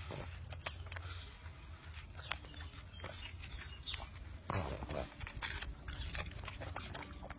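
A pug eating watermelon, its mouth chewing and smacking on the wet fruit in short, irregular clicks, with one louder, longer burst about four and a half seconds in.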